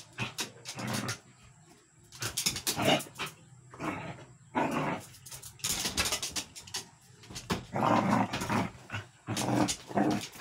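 Two dogs growling in short irregular bursts while playing rough.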